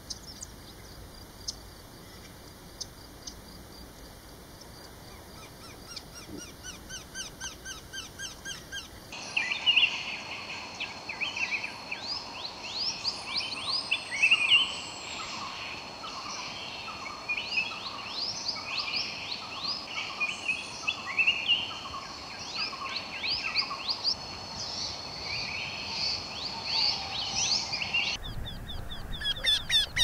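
Wild birds singing. At first sparse, with faint ticks and then a slow series of short rising notes. About nine seconds in, a dense chorus of many overlapping chirps and trills starts abruptly; near the end it changes suddenly to a fast, even run of repeated notes.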